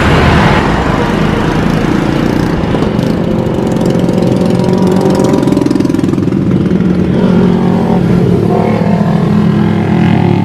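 Twin-engine widebody jet airliner on final approach: a steady, loud engine roar with a low droning hum.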